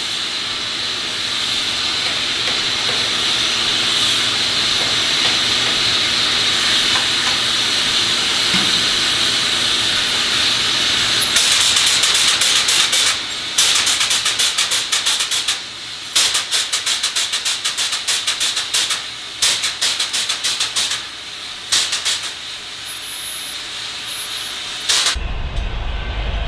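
Steam hissing from a live narrow-gauge steam locomotive: steady at first, then from about halfway it breaks into a run of loud on-off bursts. Near the end it gives way to the low rumble of a train passing.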